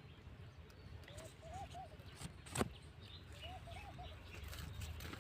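A bird calling a short phrase of four low, arched notes, twice, about two seconds apart, with fainter high chirps from other birds. A sharp click sounds between the two phrases.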